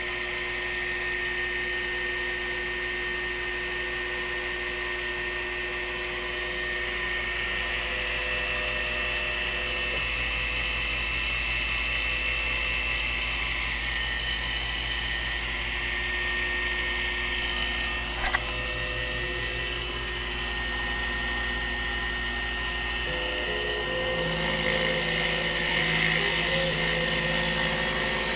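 Taig CNC mill running its cut-out program: the spindle motor gives a steady whine while the stepper-driven axes feed the quarter-inch flat end mill. A little before the end the motor tones change and the cutter enters the workpiece, adding a rougher cutting noise.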